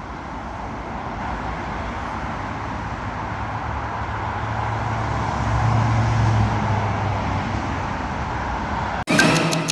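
Street traffic noise: a steady roadway rumble with a car's engine and tyres swelling as it passes about two-thirds of the way through. Music cuts in sharply near the end.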